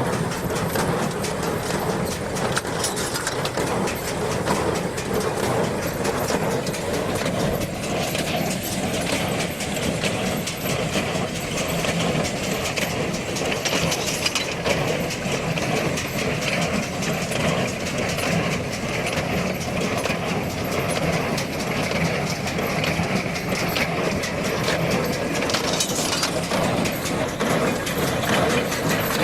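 A New Holland BC5060 small square baler working behind a John Deere 5410 tractor: a steady, dense mechanical clatter over the tractor's running diesel engine.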